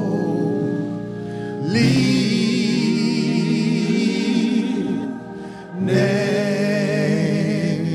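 Gospel worship singing: voices hold long, wavering notes of a slow chorus over steady sustained accompaniment. The sound dips briefly about five seconds in, then the singing resumes.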